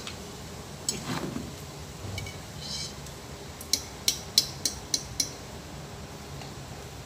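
A quick run of six sharp metallic clinks of steel kitchen utensils, about three a second and lasting about a second and a half, starting near the middle.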